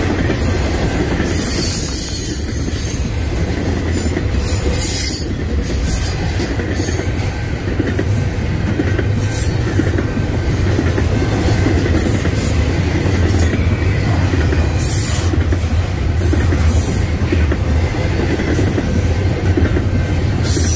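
Double-stack intermodal container train passing close by: the steady rumble and clatter of the well cars' steel wheels rolling over the rails.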